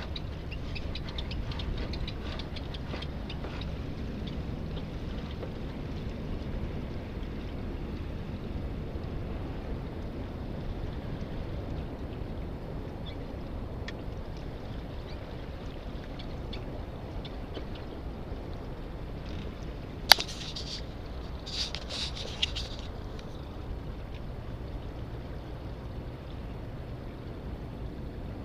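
Steady low rush of water and wind as a small junk-rigged trimaran sails downwind. A single sharp click comes about two-thirds of the way through, followed a second or two later by a few brief high rattles.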